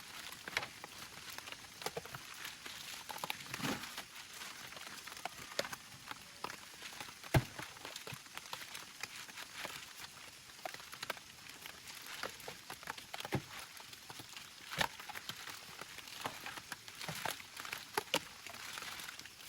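Rain pattering steadily, with scattered sharp clicks and knocks throughout; the loudest knock is about seven seconds in.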